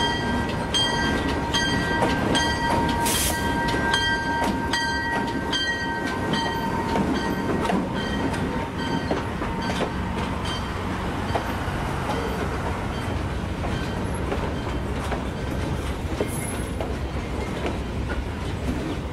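N scale model trains rolling past on the layout track with a steady rumble. For about the first seven seconds a steady whine and evenly spaced metallic clicks, roughly one and a half a second, sound over it, then fade away as the cars keep passing.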